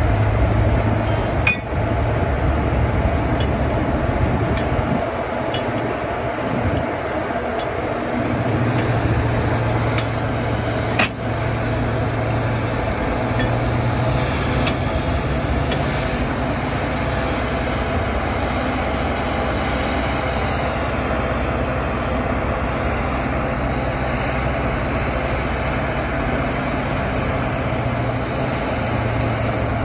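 Steady mechanical hum of a standing WAP-7 electric locomotive, with sharp metallic clinks and knocks every second or so through the first half as the coupling and brake hoses to the coach are worked on by hand.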